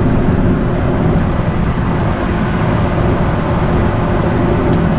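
Heavy farm machinery engine running steadily, a loud, low, constant drone.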